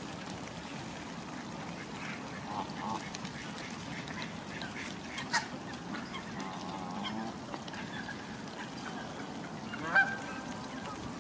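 Canada geese and ducks calling: a string of scattered calls, with two louder sharp ones about five seconds in and near the end.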